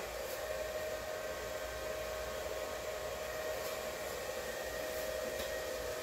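Hand-held blow dryer, its nozzle attachment removed, running steadily: an even rush of air with a faint steady hum.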